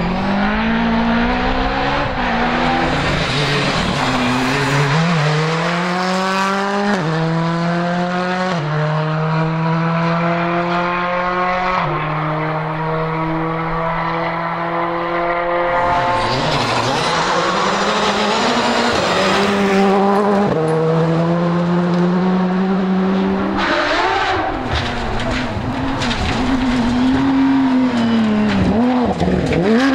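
Rally cars at full throttle on a special stage, one after another, engines climbing in pitch and dropping back at each upshift as they accelerate through the gears. Near the end a Porsche 911 GT3's flat-six revs up and down through a corner.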